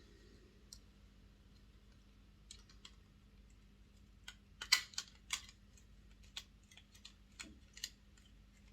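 Scattered light clicks and taps of a Hornby OO gauge model locomotive's small plastic and metal parts being handled and seated in its chassis, with a cluster of sharper clicks about halfway through.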